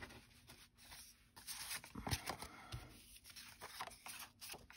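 Faint rustling and light taps of cut cardstock and patterned paper pieces being picked up, shuffled and sorted by hand.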